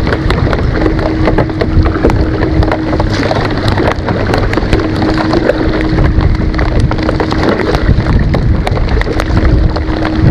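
Heavy rain falling on the lake and the kayak, with many sharp drop hits close to the microphone over a steady low rumble, and a faint steady hum underneath.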